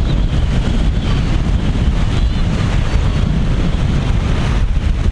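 Heavy wind buffeting the microphone, a steady low rumble over rough sea surf.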